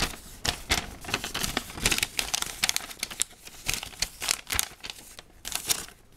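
Paper instruction sheet and plastic parts bags rustling and crinkling as they are handled, a dense run of irregular crackles.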